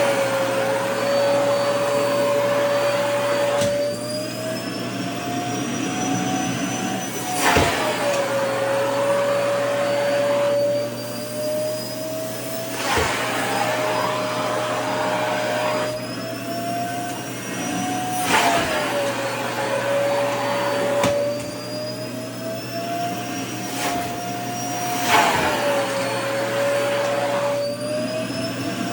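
Vacuum cleaner running with skirt fabric being sucked at the nozzle. The motor's pitch slowly climbs, then drops suddenly with a brief rush of air, four times over.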